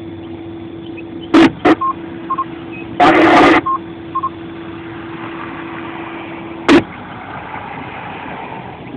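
Ham radio two-way net heard between reports: a steady low hum with a few sharp bursts of static and short high beeps. The hum cuts off after a static burst about seven seconds in.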